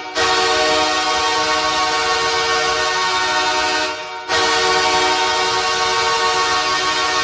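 Goal horn blasting: a loud, long, steady multi-tone blast that breaks off briefly about four seconds in, then sounds again.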